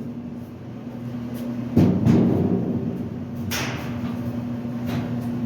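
Washing machine's sheet-metal cabinet being dragged off the frame: a loud clunk about two seconds in, then scraping and rattling of metal, over a steady low hum.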